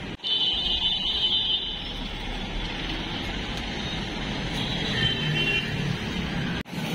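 Street traffic running steadily, motorbikes and cars passing close by, with a shrill high tone for about a second and a half near the start and again briefly near the end.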